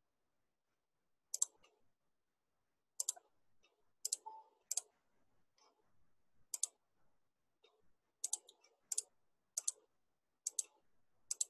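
Faint, sharp computer mouse clicks, about ten of them at uneven gaps of half a second to a second and a half, some coming as quick pairs.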